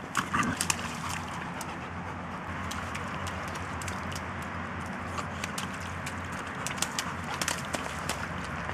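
Two dogs, a boxer and a black Labrador, pawing and mouthing in a muddy puddle: scattered splashes and sharp clicks, bunched near the start and again near the end, over a steady outdoor background.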